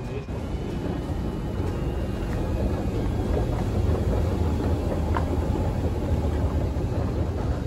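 Steady low rumble of a moving escalator in an underground station, growing a little louder a couple of seconds in.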